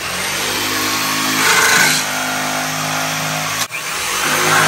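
Jigsaw cutting into a wooden frame, its motor running steadily, with a short break about three and a half seconds in before cutting resumes.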